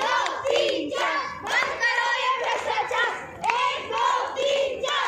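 A group of children shouting a protest slogan in unison, in rhythmic syllables, while clapping their hands.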